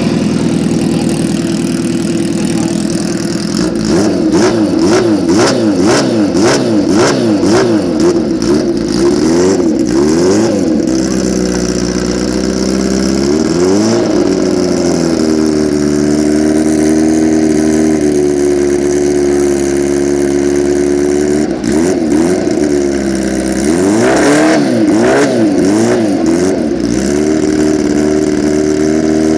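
Kawasaki Ninja H2's supercharged inline-four engine idling and being revved very loud. It runs through a long string of quick throttle blips a few seconds in, settles to a steady idle with a single rev or two, then gives another string of blips near the end.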